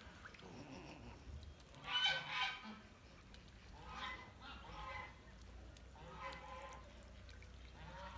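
Waterfowl honking: a loud run of calls about two seconds in, then quieter calls a few more times.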